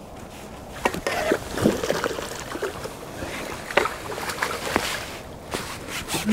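Water splashing and sloshing, broken by a few sharp knocks, as a hooked small carp thrashes at the surface while being played in and netted.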